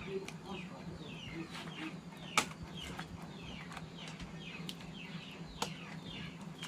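Birds chirping over and over in short falling calls, several a second, with two sharp clicks and a steady low hum underneath.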